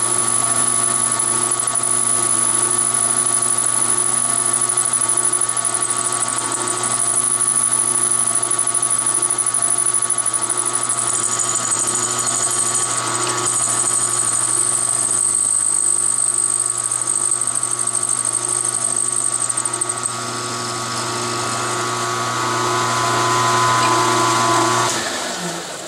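Benchtop milling machine running, its end mill cutting into thin aluminum angle: a steady motor hum and whine with a high-pitched cutting squeal that shifts as the cut goes on. Near the end the machine stops and the sound dies away.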